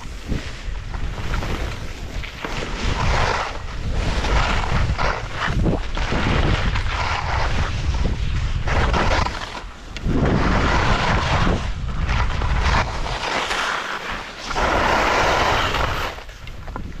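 Skis scraping and hissing over chopped-up snow through a run of turns, the hiss swelling with each turn, with wind buffeting the microphone as a low rumble.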